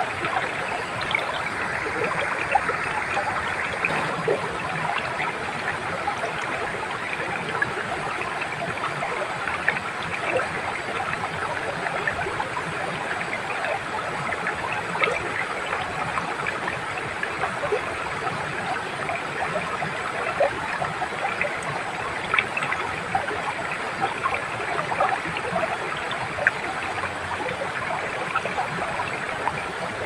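Shallow rocky stream flowing over stones below a small waterfall: a steady watery rush flecked with small bubbling splashes.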